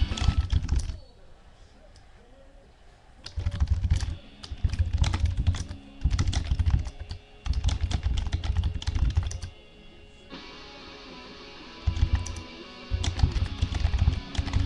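Computer keyboard typing in quick runs of clicks, over background music with a heavy bass beat. Both drop out for a couple of seconds about a second in and again around ten seconds in.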